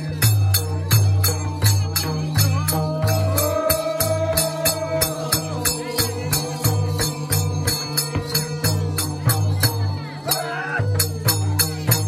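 Nepali folk music for a cultural dance: a melody over a steady beat of jingling strikes, about four a second, and a low pulsing drum.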